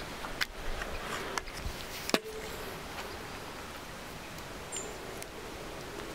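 A single shot from a PCP air rifle about two seconds in: one sharp, loud crack with a short ring after it, preceded by a few small handling clicks.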